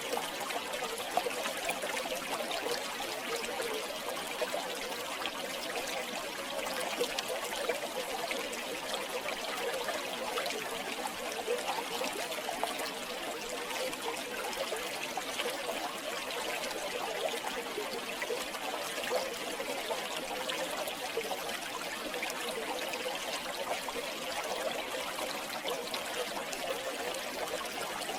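River water flowing steadily over stones, a continuous trickling and splashing with small droplet ticks throughout.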